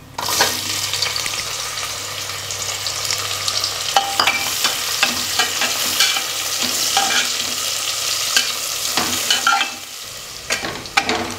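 Sliced onions hitting hot ghee and oil in a pressure cooker and sizzling at once, then frying while a slotted metal spatula stirs them with clicks and scrapes against the pot. The sizzle is quieter near the end.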